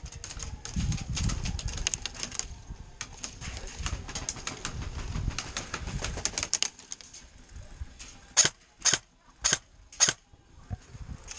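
Airsoft gunfire: a rapid clatter of shots for the first six seconds or so. Near the end come four loud, short bursts about half a second apart.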